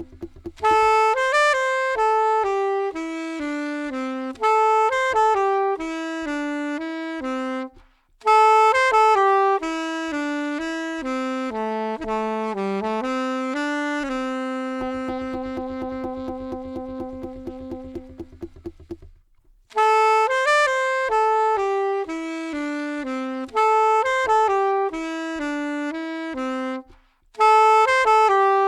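Saxophone playing a slow, relaxing melody in repeated phrases of mostly falling notes. It holds one long low note about halfway through, and breaks briefly between phrases.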